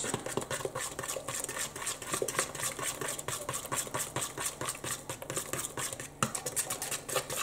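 A fork beating beer batter in a mixing bowl: rapid, even strokes of the fork clicking and scraping against the bowl as air is whipped into the wet batter.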